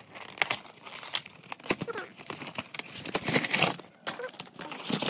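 Plastic chocolate-bar wrappers crinkling and rustling as the bars are handled and moved about, in short irregular crackles, loudest a little past three seconds in.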